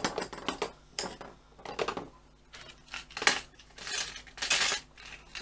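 Small metallic clinks and taps as a metal bobbin case and small tools are handled on a sewing machine's bed, with short rustles in between, louder and longer in the second half.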